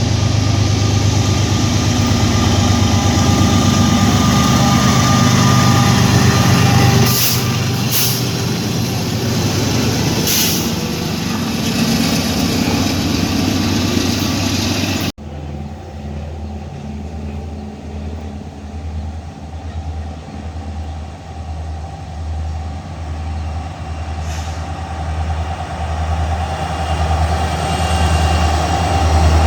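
Freight trains passing at trackside: first a loud rumble with a few short hisses, then after a cut a train running by with a steady rhythmic low pulsing.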